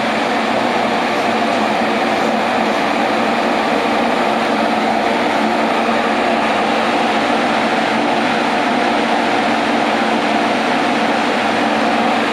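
JR Kyushu 783 series electric train standing at the platform, its on-board equipment humming steadily at an even level with several held tones.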